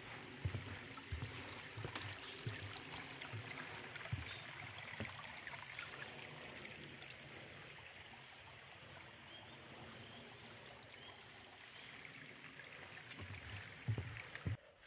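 Faint footsteps of a hiker walking a wet forest trail under a heavy pack: soft thuds about twice a second with light rustling, fading in the middle and returning near the end.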